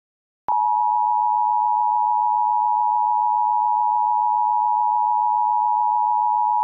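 Emergency Alert System attention signal: a loud, steady two-tone electronic tone that cuts in about half a second in and holds without a break, the signal that an emergency warning message is about to be read.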